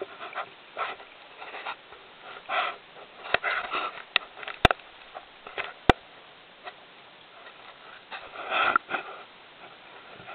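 A diver's breathing and bubbles heard underwater, muffled through the camera's housing: irregular puffs and gurgles, with a few sharp clicks near the middle and a louder burst of bubbles a little past two-thirds of the way through.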